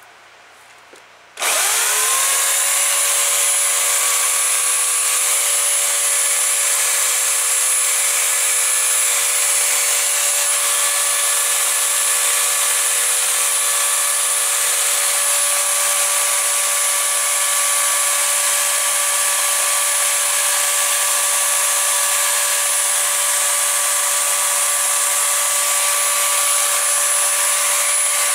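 Homelite electric chainsaw switched on about a second and a half in, its motor and chain spinning up to speed within a second and then running steadily at full speed with an even, unchanging pitch.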